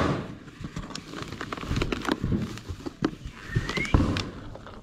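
Packaging and parts being handled while a box is unpacked: crinkling and rustling with scattered knocks and clicks, and a brief rising squeak about three and a half seconds in.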